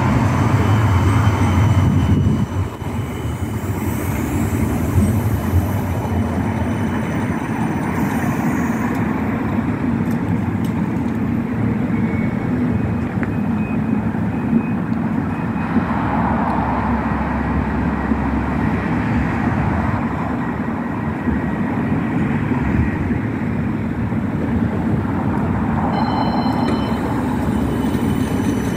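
CAF Urbos 100 tram rolling into the stop, a little louder for the first two seconds or so as it comes to a halt, then standing at the platform with a steady hum.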